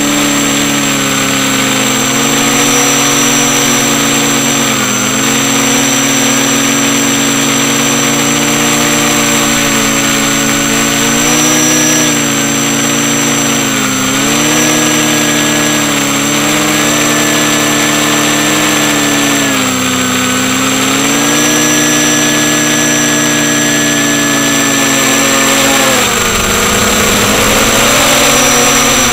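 FPV quadcopter's electric motors and propellers whining steadily, the pitch dropping briefly several times and recovering, with a thin steady high whistle above.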